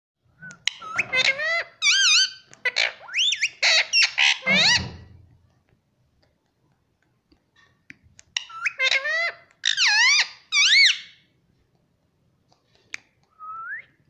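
Indian ringneck parrot calling in two bouts of loud, wavering, warbling notes, the first in the first five seconds and the second a few seconds later. A short rising whistle comes near the end.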